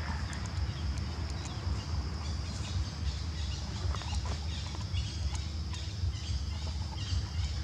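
Forest ambience: a steady high-pitched insect drone over a low rumble, with scattered faint clicks and rustles.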